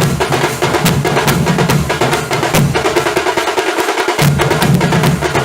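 Nasik dhol ensemble playing: deep dhol beats under fast, sharp tasha strokes. The deep beats drop out for about a second past the middle, leaving the sharp strokes on their own, then come back in.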